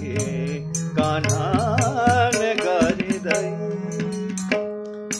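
Kumauni Holi song: a man's voice singing wavering, ornamented notes over harmonium, with drum strokes keeping time. About three seconds in the voice drops out and the harmonium holds its chord.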